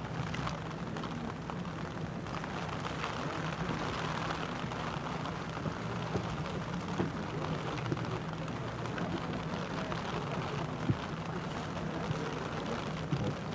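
Steady, rushing outdoor field ambience over a low hum, with a few faint clicks.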